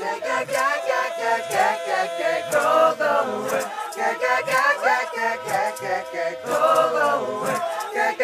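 A choir singing in gospel style, several voices together in a rising and falling melody, the opening of a song.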